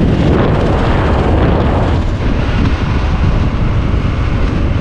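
Wind buffeting the microphone of a moving motorbike, a dense, steady rumble with the engine beneath it.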